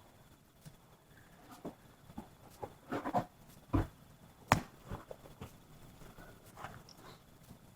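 Wood fire crackling: irregular pops and snaps from burning wood, with a cluster about three seconds in and the sharpest snap about a second and a half later.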